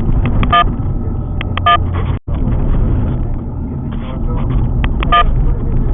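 Steady low rumble of the Alfa Romeo 147 GTA's 3.2-litre V6 and its road noise while driving. Three short high blips sound over it, and the sound drops out for an instant about two seconds in.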